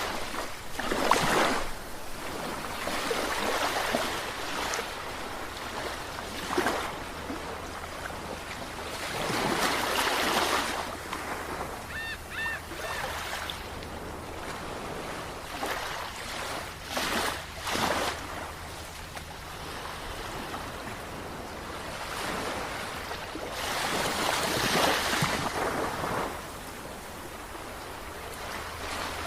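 Ocean waves breaking and washing in, the surf swelling and easing every few seconds. About twelve seconds in, two short high chirps sound over it.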